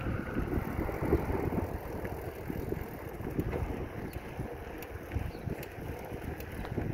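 Wind buffeting the microphone over the rumble of bicycle tyres rolling along the trail while riding.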